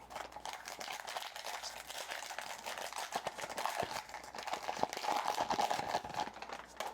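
Trading cards being handled close to the microphone: a continuous crinkly rustle made of many small clicks and scrapes, as stiff chrome cards slide over one another.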